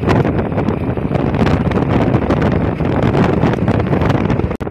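Wind buffeting the microphone, a loud steady rumble that drowns out other sound, with a brief dropout near the end.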